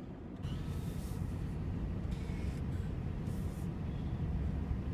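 Cargo van's engine and road noise heard inside the cab while driving: a steady low rumble that gets louder about half a second in.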